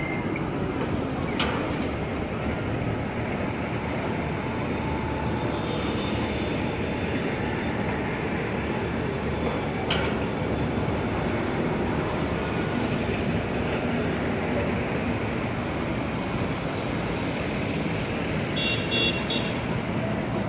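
Steady city street traffic noise, with a tram and buses on the street. Two sharp clicks sound about a second and a half in and again about ten seconds in, and a short electronic beeping comes near the end.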